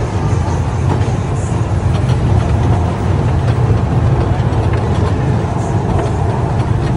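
Steady low rumble of a small ride-on kiddie train in motion, heard from aboard one of its open carriages.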